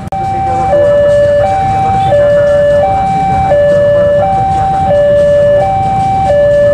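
Railway level-crossing warning alarm sounding a steady two-tone hi-lo signal, switching between a higher and a lower pitch about every three-quarters of a second, over a low rumble.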